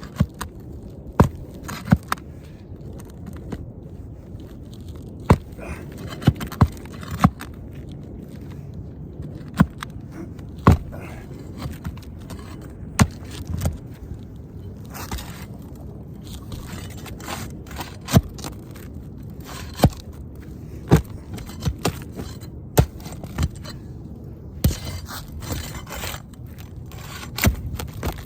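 Scraping and rubbing on an asphalt shingle roof, with sharp clicks and knocks every second or two, from work on brittle shingles during a repair attempt.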